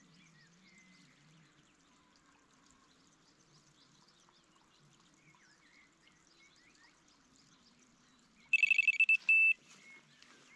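Carp-style electronic bite alarm going off about eight and a half seconds in: a quick run of loud, high beeps ending in a brief held tone, the signal of a fish taking the bait and pulling line. Before it, faint bird chirps.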